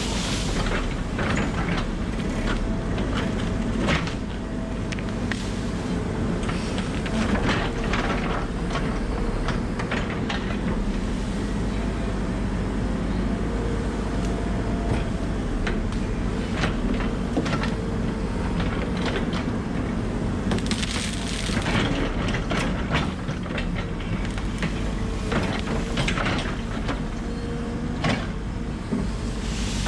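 Volvo 140 excavator's diesel engine running steadily under load, with repeated cracking and crunching of trees and branches breaking as land is cleared.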